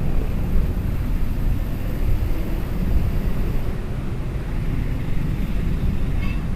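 Steady low rumble of wind buffeting the microphone, with vehicle engine noise underneath. A short high chirp comes about six seconds in.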